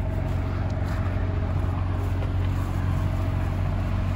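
Steady low hum of a 2007 Holiday Rambler Endeavor motorhome's engine running while the coach stands parked.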